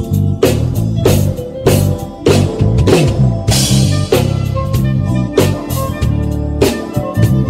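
Live band playing: a drum kit keeps a steady beat under a prominent bass guitar line.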